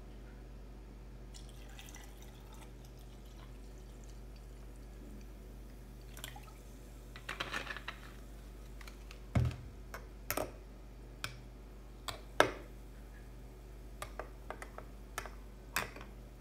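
Sparkling lemon water poured from a plastic bottle into a glass over lemon slices and fizzing. This is followed by a series of sharp clicks and a louder knock about nine seconds in, and a metal spoon clinking against the glass as it stirs near the end.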